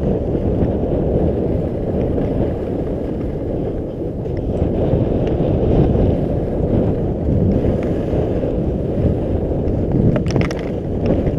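Wind rushing over an action camera's microphone while skiing fast downhill, mixed with skis running over groomed snow; a brief sharper scraping sound near the end.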